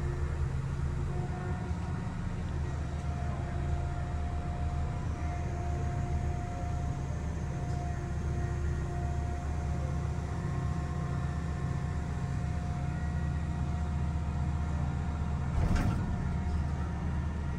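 The Liebherr R 9300 mining excavator's diesel engine running, heard from inside its cab: a steady low rumble with a faint steady whine over it. A single knock comes near the end.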